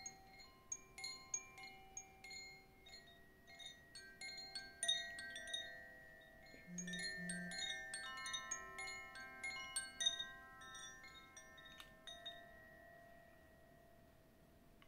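Soft tinkling chimes: many small bell-like notes struck in quick, irregular succession and ringing over one another. They are busiest in the middle and die away near the end, with two short low tones about seven seconds in.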